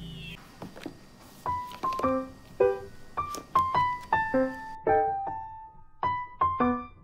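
Background piano music. After a short pause, single notes begin about a second and a half in, each struck and left to fade, about two a second.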